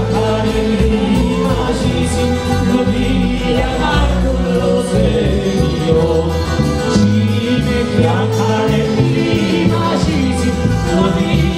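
Live pizzica band: a male lead singer sings over plucked mandolin-type strings and a heavy bass.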